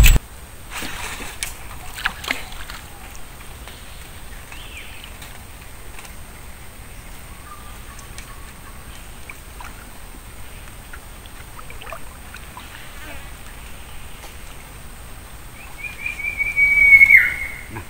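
A small wooden boat being paddled on a calm river, with soft paddle splashes and trickling water under a steady high insect drone. Near the end comes a loud, high squeal about a second long that drops in pitch as it stops.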